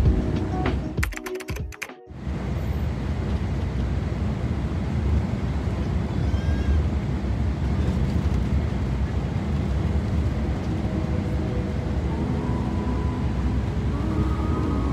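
Steady engine and road rumble heard from inside a moving intercity bus. Background music ends and cuts off about two seconds in.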